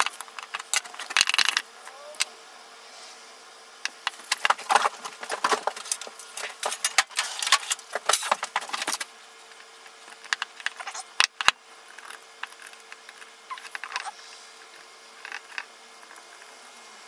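Metal clinks and rattles from a 1930s Goodell-Pratt hand drill's parts as it is handled and set down on a wooden workbench, busiest in the first half. Sparser small clicks follow near the end as a small screwdriver works a screw on the drill's frame.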